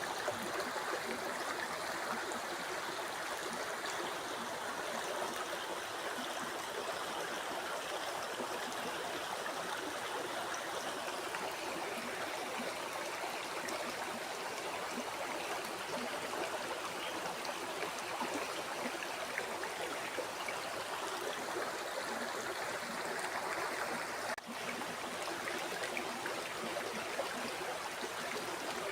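River water flowing steadily over rocks, a continuous rushing and babbling, with a brief momentary drop in level about three-quarters of the way through.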